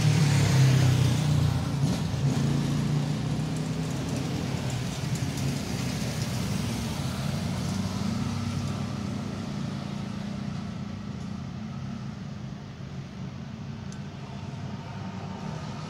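Road traffic: a motor vehicle's engine running close by, loudest in the first couple of seconds and then slowly fading away.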